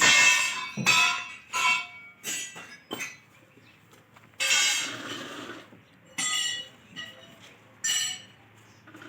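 Metal objects clinking together in a handful of sharp, ringing strikes, each tone dying away within a second.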